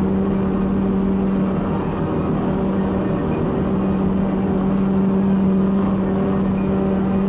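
Steady machine-shop noise: a constant low hum over a dense rushing rumble, unchanging throughout.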